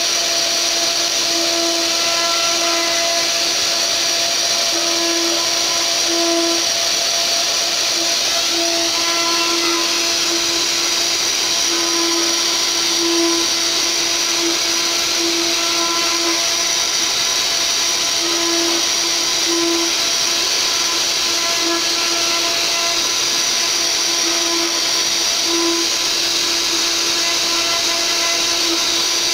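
Mini CNC router's spindle running steadily with a high whine as a 4 mm ball-nose bit rough-mills a wood relief panel, with a lower hum that keeps breaking in and out as the machine moves.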